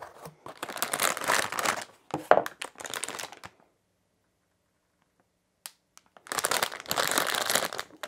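Plastic packaging crinkling as a packaged cable is handled, in two spells with a quiet pause of about two and a half seconds between them.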